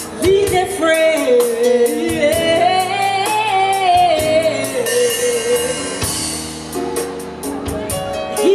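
Live gospel song: a solo singer draws out long notes that slide up and down over a backing band's held chords and steady percussive beat.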